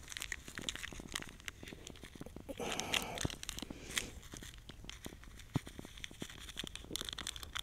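Instant coffee packets crinkling and crackling as they are torn open and shaken out into a cup, with a denser rustle of tearing about three seconds in.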